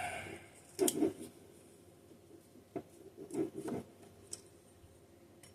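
A few light clicks and knocks, with some rubbing, as parts of a Holley spread-bore carburetor are handled during disassembly.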